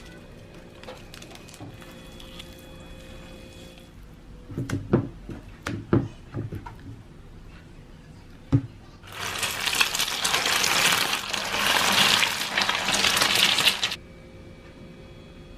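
Kitchen cooking sounds: a few sharp knocks of utensils or dishes, then about five seconds of loud steady hissing that cuts off abruptly.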